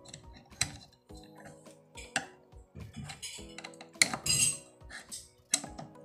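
Metal screwdriver clicking, clinking and scraping against the spin dryer's timer mechanism in a series of sharp irregular knocks, with a longer rattling scrape about four seconds in. Soft background music plays underneath.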